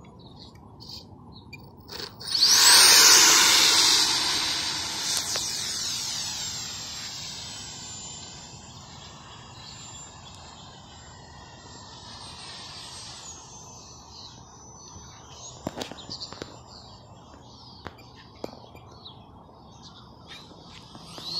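A Freewing F-22 model jet's 64 mm electric ducted fan on a 6S battery spooling up sharply about two seconds in to a loud, high-pitched whine at full throttle for takeoff. The whine then holds at a high steady pitch and slowly fades and wavers as the jet flies away and around overhead.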